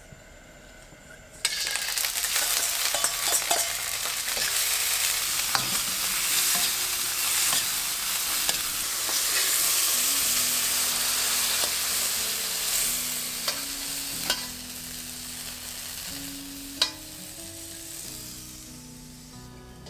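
Shredded water spinach stir-fried in hot oil in a stainless steel wok: a loud sizzle starts suddenly about a second and a half in, with scrapes and clicks of the utensil against the pan, and dies down over the last few seconds.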